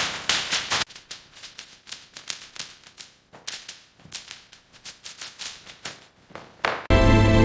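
A fast run of sharp clicks and taps, loud for the first second, then quieter and more scattered. Near the end, music comes in loudly with a deep low end.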